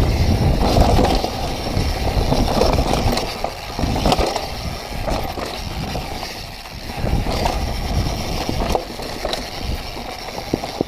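Mountain bike rolling fast down a rough dirt trail: tyres on dirt and rock with a steady low rumble and many small knocks and rattles from the bike over the bumps.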